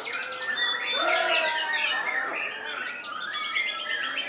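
White-rumped shama (murai batu) singing a varied, continuous song of whistled phrases and quick rattling trills, with other caged birds' calls overlapping.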